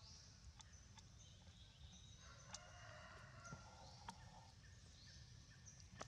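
Quiet forest ambience: a low steady rumble, scattered soft ticks and rustles in dry leaf litter, and a faint thin animal call held for about two seconds midway.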